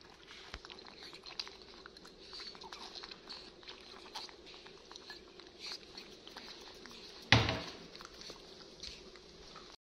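Scattered light taps and clicks of movement and handling in a small room, with one loud thump about seven seconds in.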